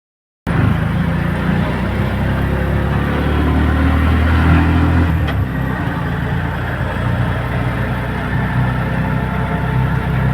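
A vehicle engine running steadily, with a low hum whose note drops slightly about five seconds in.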